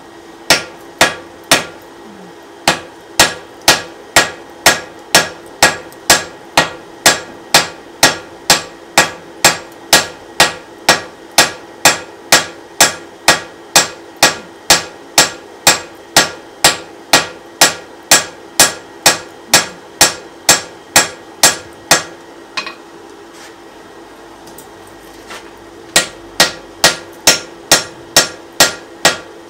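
Blacksmith's hand hammer striking a red-hot wrought iron hammer-head blank on an anvil, steady blows at about two to three a second. The hammering stops for a few seconds about three-quarters of the way through, then starts again.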